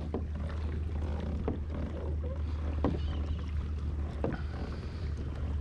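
Hobie Outback pedal kayak under way on calm water: a steady low rumble with soft knocks about every second and a half.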